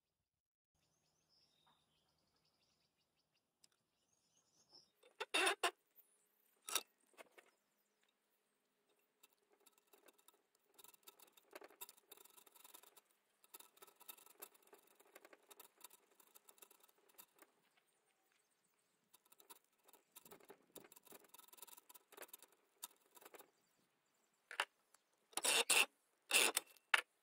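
Small file rasping in short strokes on the tip of a steel rod clamped in a bench vise, cutting a groove into its end. A few sharp knocks sound twice early on and again in a quick cluster near the end.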